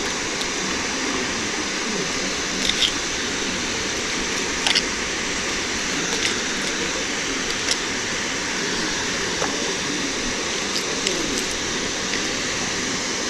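Steady rushing outdoor noise with a few light clicks scattered through it.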